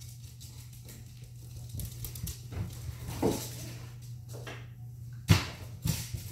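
A small dog moving about on a wooden floor: scattered light taps and scuffs of paws and claws over a faint steady low hum, with a sharp thump a little after five seconds in and a smaller one just after.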